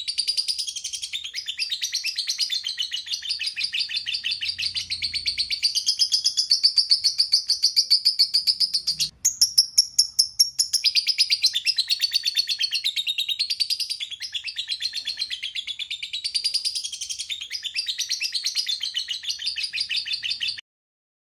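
Lovebird singing a long, fast chattering run of high notes, with a brief break about nine seconds in; it cuts off suddenly shortly before the end.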